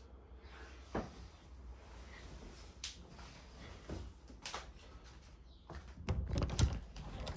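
A person getting out of bed and moving about a quiet bedroom: scattered soft knocks and rustling, then a burst of louder knocks and handling noise about six seconds in.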